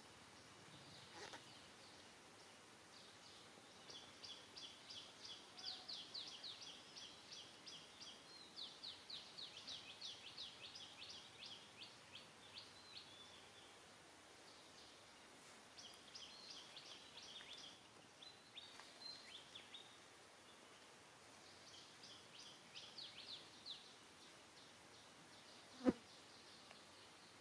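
Faint high-pitched chirping in quick trains of short notes, several a second, coming in three bouts. A single sharp click near the end.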